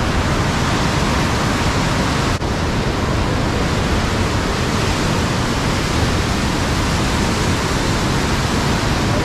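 Loud, steady rush of the Parvati River, a muddy whitewater torrent in spate after a recent flood.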